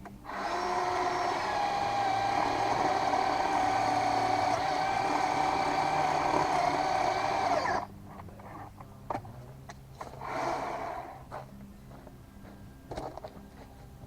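Worx WG322 20V cordless chainsaw's electric motor running at a steady high whine for about seven and a half seconds, then stopping abruptly. A few seconds later it runs again briefly, with a few scattered knocks in between.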